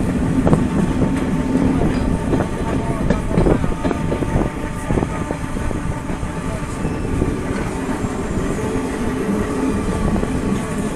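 Renfe Serie 442 electric multiple unit running along the metre-gauge track, with a steady running noise, a few steady tones, and irregular clicks and knocks from the wheels on the rails.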